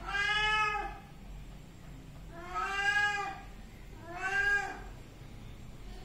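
Domestic cat meowing three times, each meow under a second long and arching up then down in pitch.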